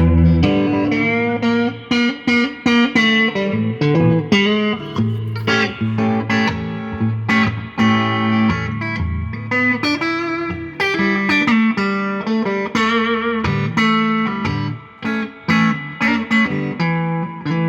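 Fender Stratocaster Road Worn electric guitar with a clean tone playing an instrumental Delta blues passage: picked single notes and chords over a steady bass line, with a few held notes wavering in vibrato.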